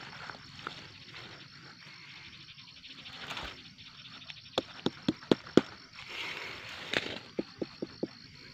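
A hand knocking on a large green gourd, making hollow thumps: five sharp knocks about four and a half seconds in, then one more and a quicker even run of about four a second near the end.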